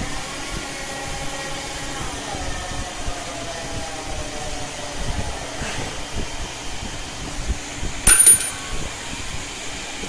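CNC machine running, with a steady mechanical hum and a faint motor whine that slides up and down in pitch over the first few seconds. About eight seconds in comes a short, loud, sharp sound from the machine.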